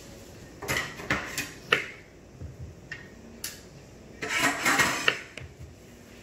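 Small kitchen knife cutting through a peeled raw potato and tapping on a plastic cutting board: a handful of sharp knocks, then a longer scraping clatter about four seconds in.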